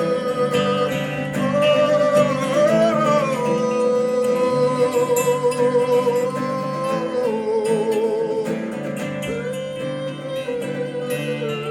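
Acoustic band music: a sustained lead melody with slides and vibrato over plucked guitar accompaniment.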